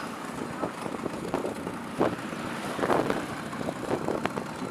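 Bajaj Classic scooter engine running while riding along in third gear, with wind on the microphone.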